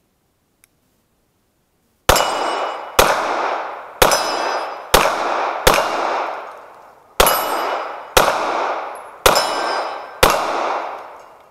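Nine shots from a 9mm semi-automatic pistol, fired at a steady pace of about one a second with a short pause midway. Each shot rings out with a long echo that fades before the next.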